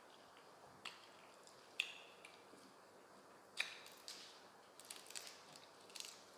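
Close-miked eating sounds: sharp wet clicks and smacks of chewing, a few spaced ones at first and then a quick cluster near the end, along with fresh coriander sprigs being bunched and crushed in the hands.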